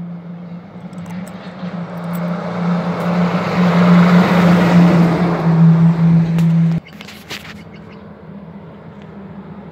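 Diesel log truck, a Kenworth tractor carrying its trailer, driving past close by: engine and tyre noise builds over a few seconds, is loudest around the middle, and cuts off abruptly about seven seconds in.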